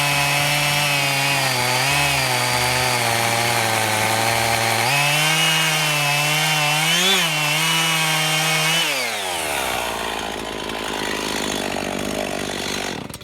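Two-stroke chainsaw with a hand-filed chain running at full throttle through wood, its pitch dipping and rising slightly with the load. About nine seconds in the throttle is released and the engine winds down to idle. The sound cuts off abruptly at the very end.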